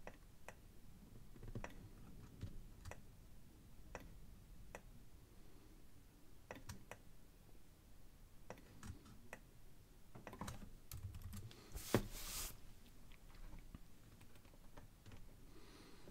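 Faint, irregular clicks of a computer mouse and keyboard, with one louder click about three quarters of the way through.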